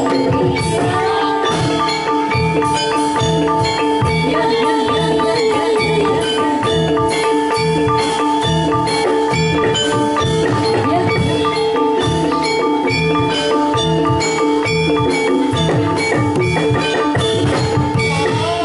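Javanese gamelan playing jathilan accompaniment: kendang hand-drum strokes in a steady rhythm over ringing bronze metallophones and gongs, with a held tone beneath throughout.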